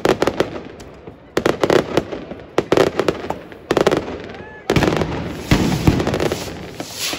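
Fireworks: aerial shells bursting in clusters of sharp bangs about every second, with a longer, denser run of bangs and crackling starting about two-thirds of the way through.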